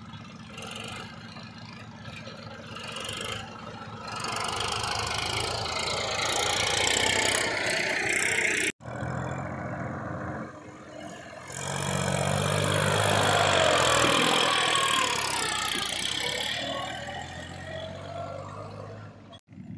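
New Holland 3032 tractor's diesel engine running as it hauls a trolley loaded with soil. It grows louder as the tractor draws near and is loudest as it passes close, with an abrupt break about nine seconds in.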